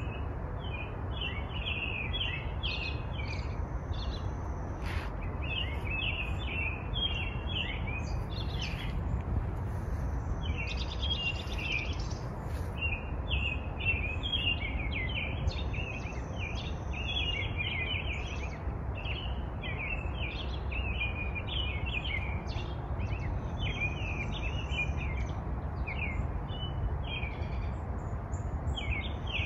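Several garden birds singing at once, a chorus of overlapping chirps, trills and a few high whistled notes, over a steady low background rumble.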